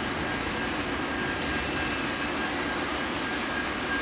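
Diesel freight locomotives at the rear of a loaded stone train running away down the line: a steady engine drone and rail rumble with a faint, steady high whine over it.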